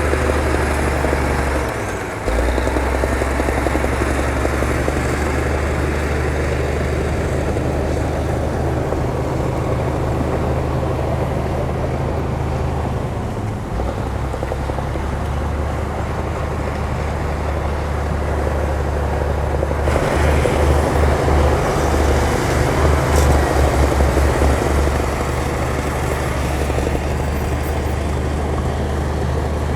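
Heavy earthmoving machine's diesel engine running at work, a steady low drone. It dips briefly about 2 and 14 seconds in and gets louder and pulsing from about 20 to 25 seconds.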